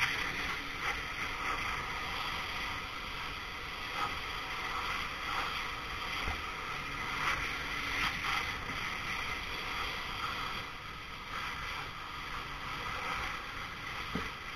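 Pressure washer running with its high-pressure jet spraying steadily, the water hissing and splattering against a plastic bottle of cola as it cuts into it.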